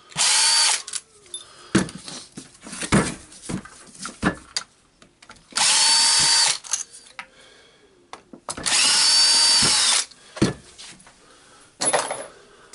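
Cordless drill-driver with a Torx bit running in short bursts to back out screws, three runs of about a second each, each winding up quickly to a steady whine. Short clicks and knocks of metal parts come between the runs.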